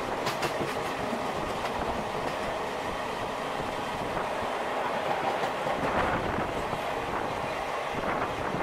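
Indian Railways passenger train running at speed: a steady rush of wheel and rail noise, with a few sharp clicks of wheels over rail joints about half a second in.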